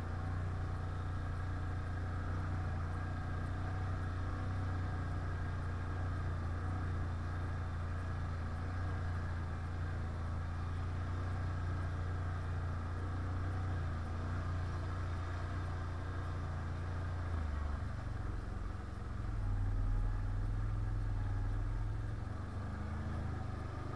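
Quad (ATV) engine running at steady low revs, with a brief rise in level about twenty seconds in.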